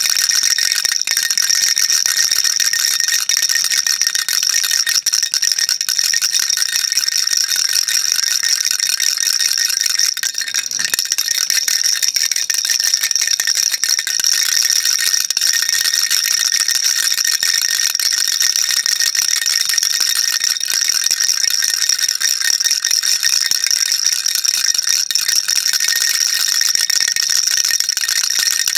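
Baby rattle shaken without pause: a dense, steady, high-pitched rattle.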